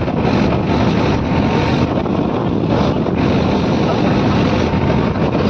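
New Holland 3600-2 tractor's diesel engine running steadily as it drives, with wind buffeting the microphone.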